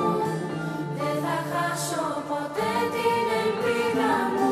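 Choir of girls and young women singing a slow song together in long, sustained notes, with a low held accompaniment note underneath for the first couple of seconds.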